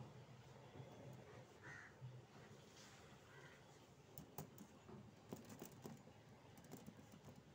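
Near silence, with a run of light clicks and taps about four to seven seconds in from a bandicoot rat moving about a wire-mesh cage trap, and a few faint short calls earlier on.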